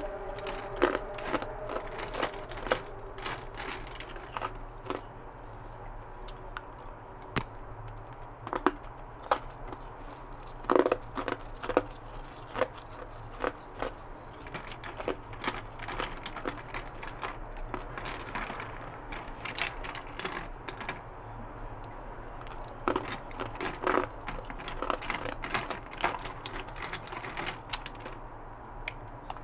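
A person crunching ice cubes with their teeth close to the microphone: irregular sharp cracks and crunches with quieter chewing between them.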